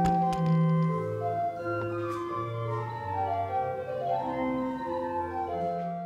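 Church organ playing a slow piece: sustained chords over a bass line that moves from note to note.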